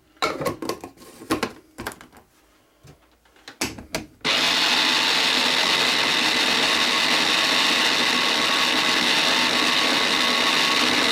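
Plastic clicks and knocks as the bowl, lid and motor head of a small electric mini chopper are fitted together. About four seconds in, the chopper's motor starts and runs steadily, its blades mixing chopped garlic and parsley with olive oil.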